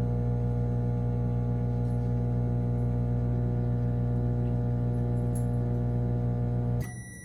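Microwave oven running with a steady electrical hum in the last seconds of its timed cycle. The hum cuts off suddenly near the end as the timer runs out, and a high beep starts.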